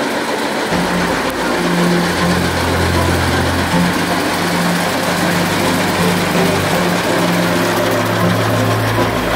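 Engine of a green vintage tractor running steadily at low speed as it drives slowly past.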